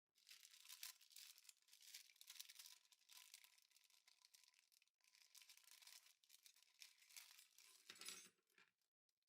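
Faint crinkling and rustling of packaging being handled, with a short break about halfway and a soft bump near the end.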